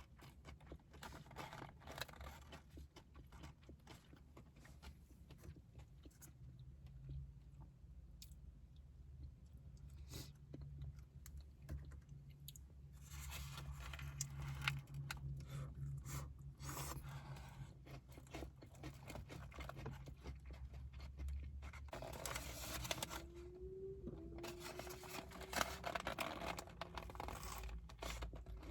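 Close-up crunching and chewing of a crispy fried chicken sandwich, with bites and wrapper tearing and scraping. The sound comes in irregular clusters over a steady low hum.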